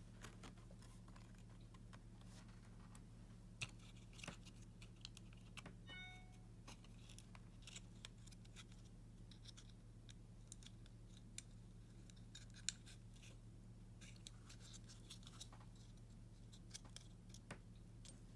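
Faint scattered clicks and scratches of small parts being handled, over a steady low electrical hum, with a short faint beep about six seconds in.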